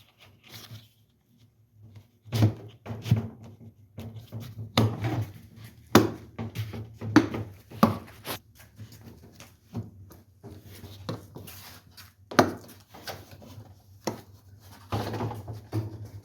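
Irregular knocks, clicks and clatters as a washing machine's ring is pushed and worked back into place by hand during reassembly, with a faint steady low hum underneath.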